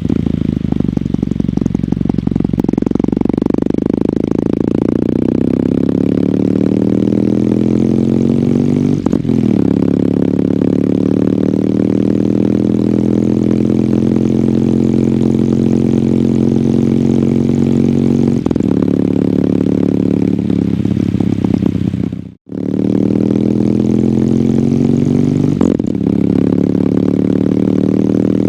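Kawasaki W800's air-cooled parallel-twin engine running through its stock exhaust on the move, the engine note shifting steadily and changing abruptly about 9, 18 and 26 seconds in, as at gear changes. The sound cuts out for an instant about 22 seconds in.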